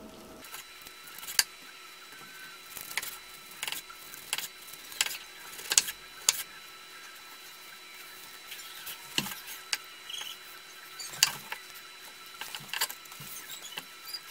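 Large butcher knife cutting roast chicken on a wooden cutting board: scattered light clicks and taps of the blade against the board, at irregular intervals with short quiet gaps.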